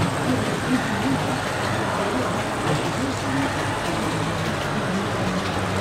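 Busy exhibition-hall ambience: a steady wash of crowd chatter and hall noise, with fragments of distant voices.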